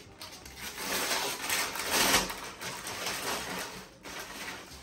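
Tissue paper rustling and crinkling as a gift is pulled out of a paper gift bag, loudest about two seconds in.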